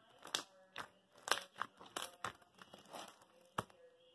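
Crunchy slime being squeezed and pressed by hand, giving an irregular run of sharp crackles and pops.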